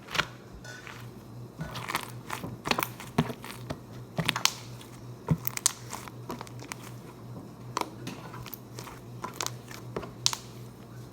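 Slime being squeezed and handled, giving irregular sharp clicks and crackles. A low steady hum lies underneath.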